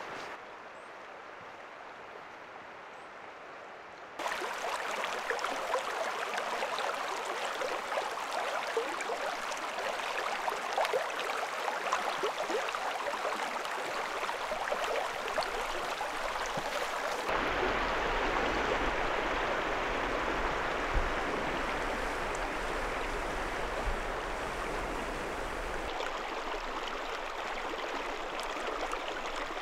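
A creek running and splashing, heard in a few separate cuts: quieter for the first four seconds, then louder and fuller, with a low rumble added from about 17 seconds in until about 26 seconds.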